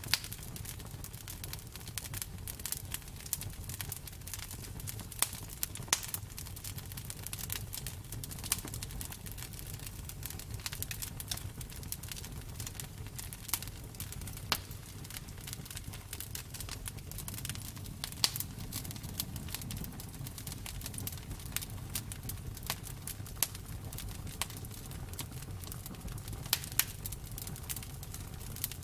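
Wood bonfire crackling: irregular sharp pops and snaps, a handful of them louder, over a steady low rumble of the flames.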